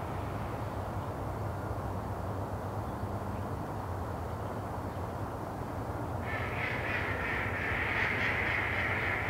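A bird calling repeatedly starts about six seconds in and becomes the loudest sound, over a steady low background rumble.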